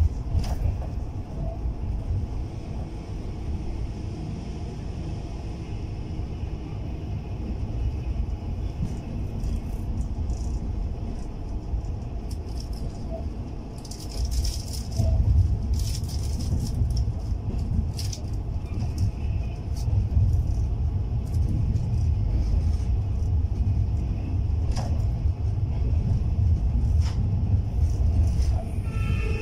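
A passenger train carriage running along the track, heard from inside the coach: a steady low rumble of the wheels on the rails with scattered clicks and rattles. It grows louder about halfway through.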